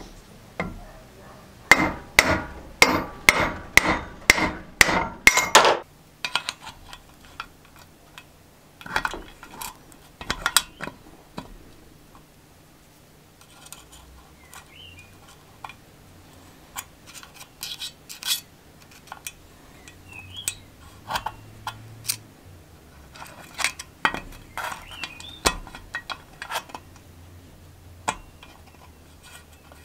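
About ten sharp, ringing metal hammer blows, a little over two a second, knocking a ball bearing off a shaft clamped in a vise. After them come scattered light metallic clicks and clinks as the valve springs of a 1984 5 hp Briggs & Stratton engine are pried with a screwdriver.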